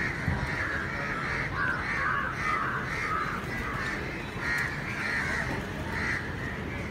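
A flock of crows cawing, many short harsh calls overlapping one after another, over a steady low hum of city traffic.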